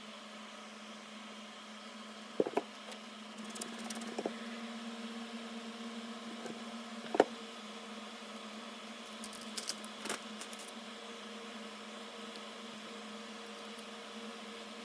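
Small clicks and taps of parts being handled on a workbench during LCD module reassembly, the sharpest tap about seven seconds in and a flurry of light clicks around ten seconds, over a steady electrical hum.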